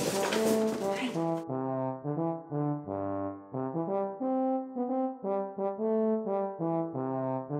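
Background music: a bouncy tune of short, separate pitched notes, with a brief noisy rustle under it in the first second or so.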